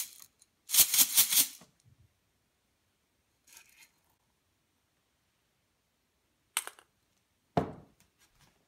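Unpopped popcorn kernels rattling in a glass vase shaken by hand, a quick burst of rattling about a second in. Later come a faint rustle, a short click and a thump near the end.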